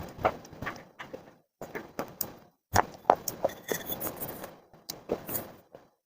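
Crunchy baked clay being bitten and chewed close to the microphone: irregular sharp crunches in clusters, with two short pauses.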